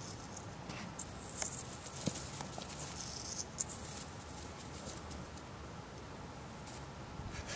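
Light rustling and scratchy patter in dry grass from a small puppy moving about on its feet, over a steady outdoor background hiss.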